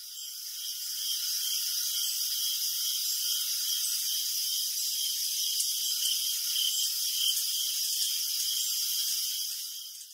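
A steady high-pitched hiss with a faint regular pulsing in it, a few pulses a second, fading in at the start and fading out near the end.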